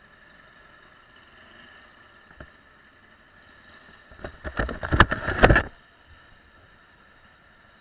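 Rubbing and knocking right at the camera microphone as the camera is moved: a rapid cluster of loud knocks about four to six seconds in, over a faint steady hum of idling traffic.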